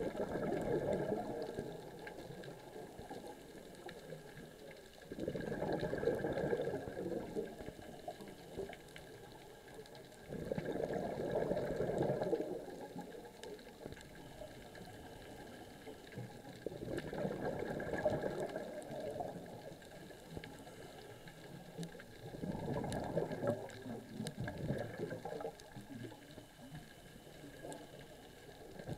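A diver's breathing heard underwater: bursts of bubbling from each exhalation, two to three seconds long and coming about every six seconds, with quieter stretches between.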